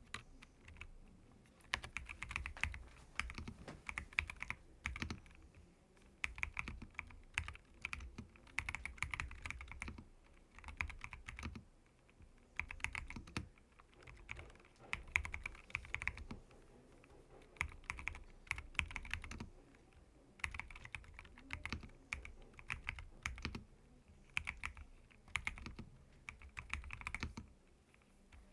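Typing on a custom Akko 5075B VIA mechanical keyboard fitted with JWK T1 tactile switches and ISA double-shot keycaps: rapid keystrokes in bursts of a second or two, separated by short pauses, each stroke a sharp click over a low thock.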